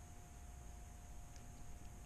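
Faint open-air quiet on the water: a low rumble with a steady thin hum under it, and one faint tick a little past halfway.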